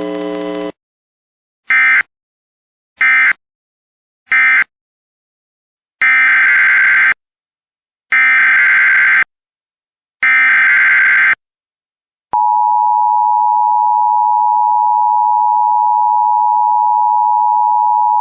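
Emergency Alert System signalling. After a brief buzz that cuts off in the first second, three short digital data bursts sound as the end-of-message code. Three longer warbling data bursts follow as the SAME header of the next alert, and at about twelve seconds in the steady two-tone EAS attention signal begins.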